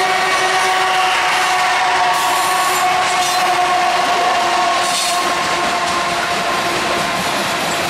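CSX freight train's diesel locomotives passing at speed, a heavy rumble of engines and wheels on rail, with a steady pitched tone over it that sinks slightly in pitch as they go by.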